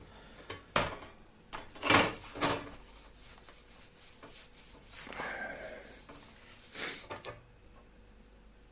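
Old handsaw being shifted over a workbench: a few knocks, the loudest about two seconds in, then several seconds of the steel blade scraping and rubbing against the bench and the tools on it.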